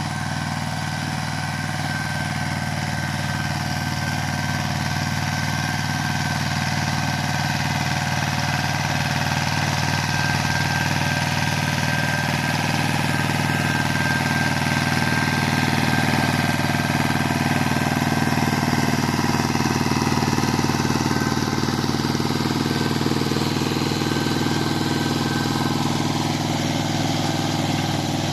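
Pasquali 425 compact tractor's engine running steadily while it drives a rear Maschio rotary tiller through the soil. It grows louder as the tractor comes close and passes, then eases slightly near the end.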